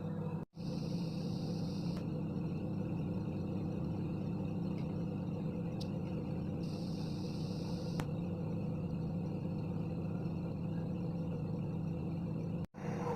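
Microwave oven running with a steady low hum, cut off briefly twice, about half a second in and near the end.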